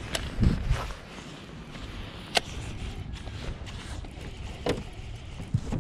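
Steady wind and water noise around a small fishing boat, with a couple of dull low thumps in the first second and a few sharp clicks and knocks from handling the rod and boat.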